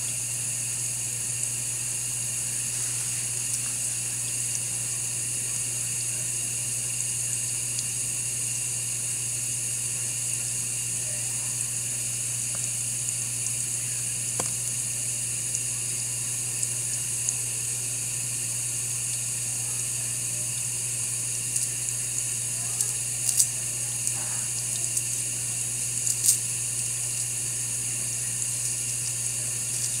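2020 GE Profile dishwasher running a wash cycle: a steady hiss of water spraying inside the tub over a low, even hum, with a few small clicks or knocks in the last several seconds.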